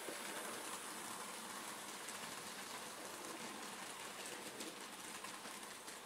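Bachmann OO-gauge LNER Robinson O4 model locomotive and its slate-loaded wagons running past on the layout track: a steady rolling rattle of wheels on rail with faint clicks, easing slightly near the end as the last wagons go by.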